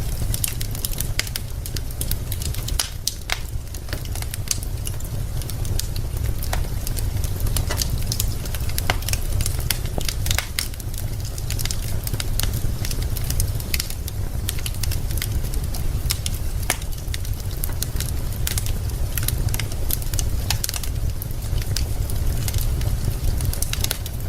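Wood fire burning in a fireplace, the logs crackling with frequent, irregular sharp pops and snaps over a steady low rumble.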